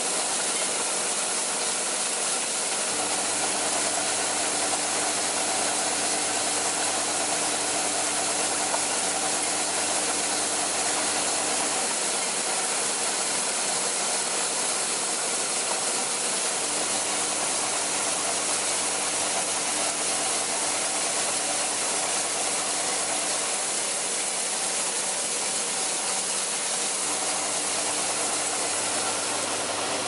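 Automatic cable clip and nail assembly machine running with a steady hiss. A low motor hum switches on and off three times, running several seconds each time.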